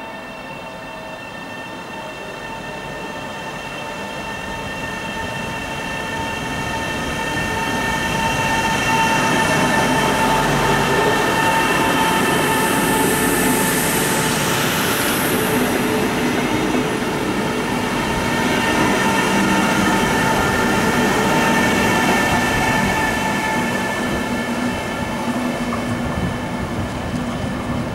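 Arlanda Express electric train passing slowly through a station. Its rolling noise, with a steady high whine, grows louder over the first eight seconds or so, stays loud as the carriages go by, and eases off near the end as the train pulls away.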